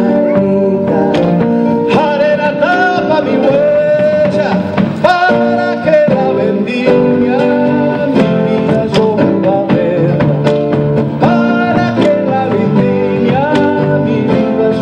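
A band playing an Argentine zamba: guitar and other instruments under a wavering melody line, with a steady beat.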